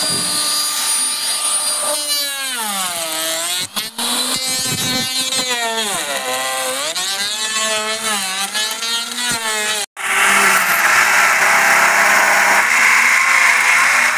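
Handheld electric woodworking tools cutting timber. A power-tool motor whines steadily, then an electric router's whine sags and recovers again and again as it bites into the wood. After an abrupt break about ten seconds in comes a louder, rougher electric circular saw cutting through a plank.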